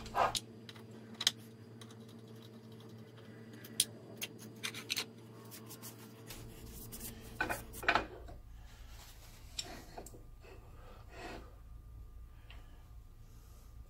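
Scattered light metal clinks and scrapes of steel lathe parts (cross slide, chip cover, compound rest base) being handled and set in place, over a steady low hum.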